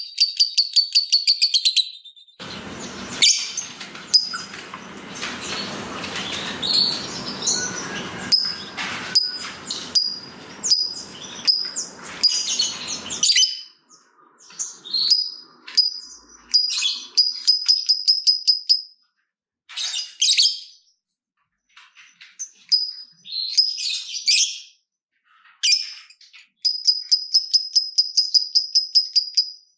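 Lovebird giving long 'ngekek' trills, runs of rapid, evenly repeated high chirps, broken up by shorter chattering calls. For about ten seconds in the first half the calls sit over a noisier, rougher background.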